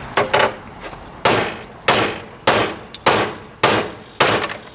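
Hammer blows on crash-damaged car body sheet metal while the front end is straightened: two light taps, then a steady run of hard strikes about every 0.6 seconds.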